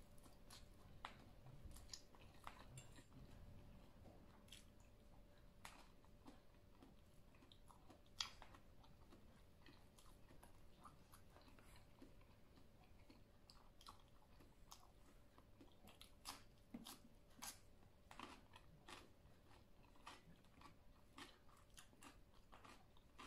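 Quiet close-up chewing of a spicy noodle salad with cucumber: soft wet mouth clicks and small crunches, scattered irregularly, with one sharper click about eight seconds in.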